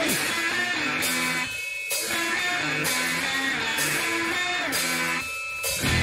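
Rock band recording playing a choppy, staccato guitar riff over bass. It breaks off briefly twice, a little under two seconds in and again near the end.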